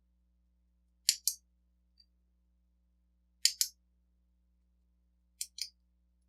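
Three pairs of sharp clicks, about two seconds apart, from the small hand work of shimming a mortise lock cylinder open.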